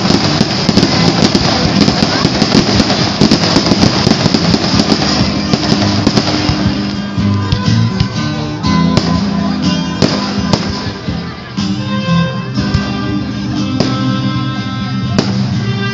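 Aerial fireworks going off in a dense barrage of crackling and popping for the first six seconds or so. Then music with guitar comes to the fore, with a few more single firework bangs over it.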